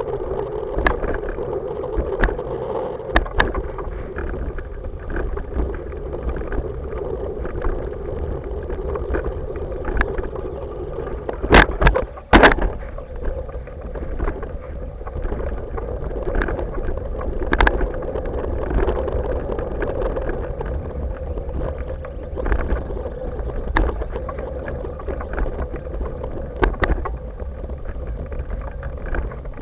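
Hoverboard rolling along a path, heard close up from a camera mounted low on the board: a steady rumble and hum from the wheels over the ground, with scattered knocks and rattles from bumps. A cluster of loud knocks comes about twelve seconds in, and the hum eases off after that as the path turns to dirt.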